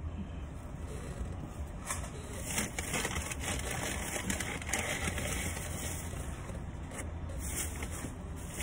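Rustling and crinkling of a takeout food bag being dug through, heaviest in the middle of the stretch, over a steady low hum inside the car.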